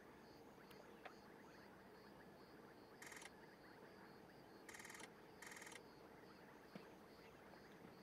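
Faint open-air ambience. A high chirp repeats about twice a second, and three short buzzy bursts come about three, five and five and a half seconds in.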